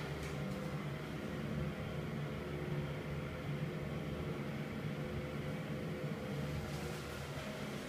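Cata axial bathroom exhaust fan running at steady speed: a constant low hum with a faint steady tone over an airy hiss.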